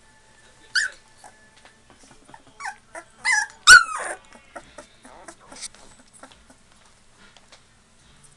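2.5-week-old Labrador puppies whimpering and squealing: a few short, high-pitched cries that fall in pitch, the loudest cluster about halfway through, with quieter stretches between.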